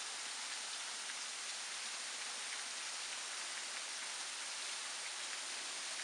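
Thin waterfall falling in strands and drips down a rock face: a steady, even hiss of falling and splashing water, with scattered small drip ticks through it.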